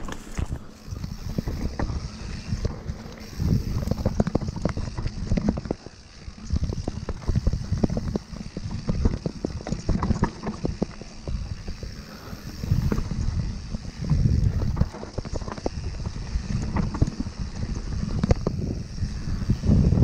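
Mountain bike riding fast down a rough dirt trail: wind buffeting the microphone in gusty swells, tyres rolling over dirt and stones, and the bike clattering and rattling with many short knocks over the bumps.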